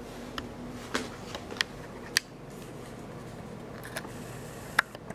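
About eight sharp clicks and taps at irregular intervals, the loudest near the end, over a steady background hum.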